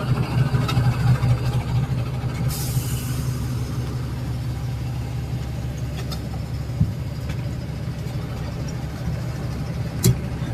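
Heavy diesel engine running steadily, a little louder in the first couple of seconds, during the loading of an excavator onto a truck. There is a short hiss about two and a half seconds in, and a sharp click near the end.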